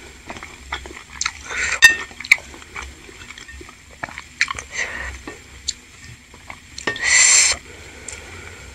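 Close-miked eating sounds: wet chewing of chewy tapioca balls (bakso aci) and a wooden spoon clicking and scraping against the bowl, with a brief louder noisy sound about seven seconds in.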